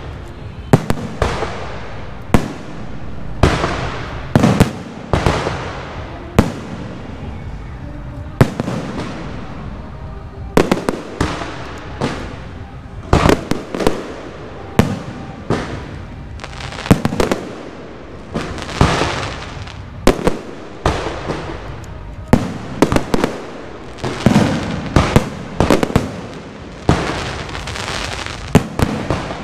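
Aerial fireworks shells bursting overhead one after another, dozens of sharp bangs at uneven spacing, each ringing off in echo, over a continuous crackle.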